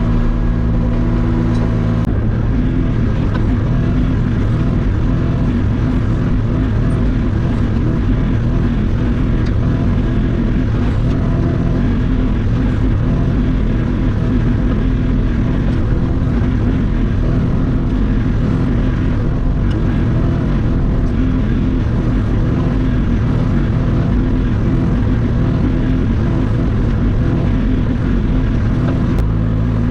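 Hauyee HY35C mini excavator's diesel engine running at working speed. Its steady note turns rougher about two seconds in and steadies again just before the end.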